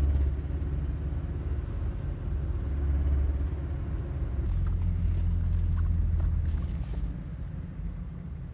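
Low engine and road rumble of a moving passenger vehicle heard from inside the cabin. The engine note changes about four and a half seconds in, and the rumble eases off around seven seconds.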